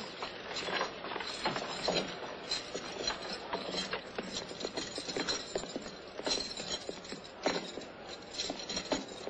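Irregular footsteps and knocks on wooden stairs and boards as men climb onto a wooden gallows platform, over a steady clattering background.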